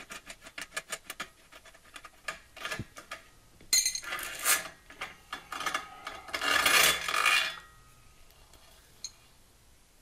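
Light metal clicking and scraping from a homemade threaded-rod bearing press being taken off a bottom bracket: a quick run of small clicks, then two bursts of metal-on-metal rubbing as the nut and washers are worked off the rod.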